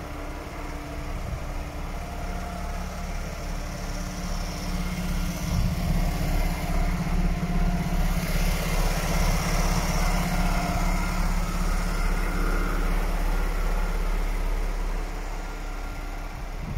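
DAF XF 440 truck's six-cylinder diesel engine idling steadily, louder in the middle stretch.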